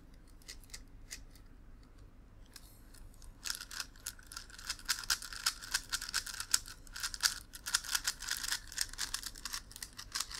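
Plastic megaminx being turned by hand: a few scattered clicking turns, then from about three and a half seconds in a fast, dense run of clicking, rattling turns.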